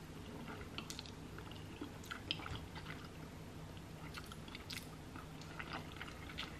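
Chewing of chili cheese fries, heard as faint, irregular wet mouth clicks and smacks.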